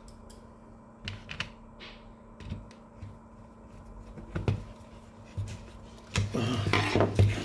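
Scattered clicks and knocks of plastic and metal printer parts being handled and screwed together on the fuser unit, followed by a louder clattering rattle of about a second near the end.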